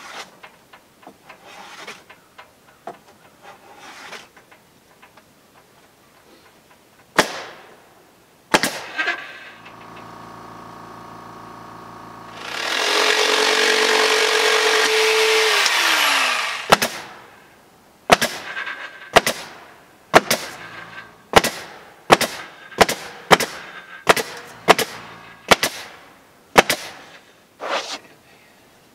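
A Bosch jigsaw runs up and saws through a western red cedar shingle for about four seconds, its pitch dropping as it stops. After that a pneumatic crown stapler fires about twenty sharp shots, one or two a second, fastening cedar shingles to the wall. Before the cut there are light taps and two sharp knocks of shingles being handled.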